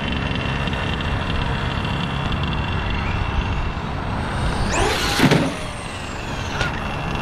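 RC monster truck driving, with a steady mechanical and ground noise throughout. About five seconds in, its motor whine climbs steeply in pitch and then falls away; this is the loudest moment.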